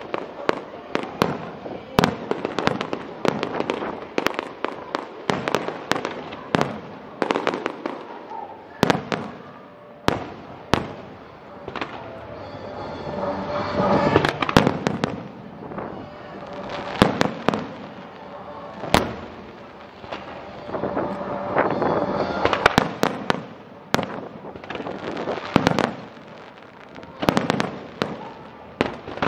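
Aerial fireworks shells bursting overhead: a continuous string of sharp bangs, at times several a second, with no let-up.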